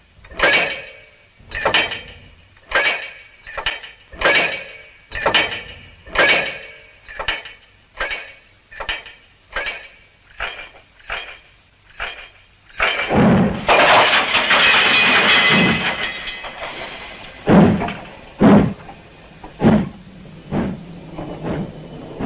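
Steam locomotive starting a heavy freight train: its exhaust chuffs quicken from about one every three-quarters of a second to about two a second. About thirteen seconds in comes a loud steam hiss lasting about three seconds, followed by a few heavier chuffs spaced about a second apart.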